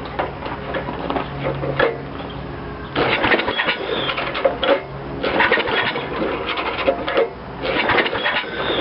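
8 hp Briggs & Stratton mower engine being pull-started again and again, cranking in rattling bursts of about two seconds with short pauses between pulls, without settling into a steady run. The engine will not start on its own, which the owner puts down to old gas.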